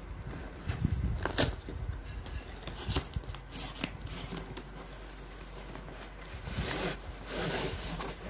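Cardboard tripod box being handled and opened: scattered knocks and taps on the box in the first few seconds, then longer scraping and rustling of cardboard near the end as the box is opened.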